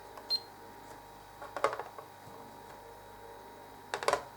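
A digital scale's short high beep, followed by a few light clicks and knocks as the stainless-steel multitool is handled and set on the scale.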